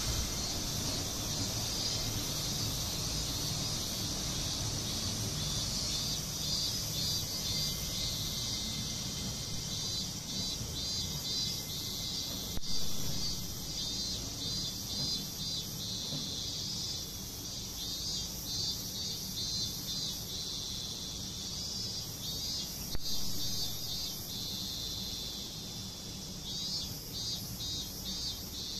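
Insects chirping in the surrounding trees: a steady high hiss with repeated quick chirp clusters, over a low steady rumble. Two short sharp clicks, one about halfway through and one near the end.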